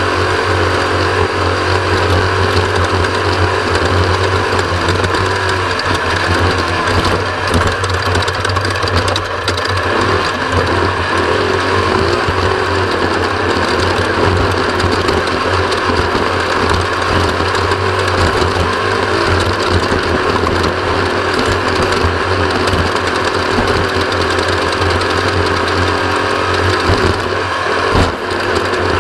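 Off-road race vehicle's engine running loud and steady at speed, heard from on board.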